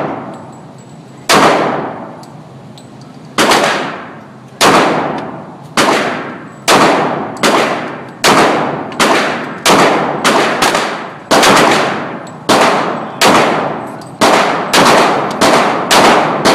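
Semi-automatic handgun fired shot after shot, about twenty rounds, each report followed by a ringing tail. Shots come about two seconds apart at first, then quicken to roughly two a second.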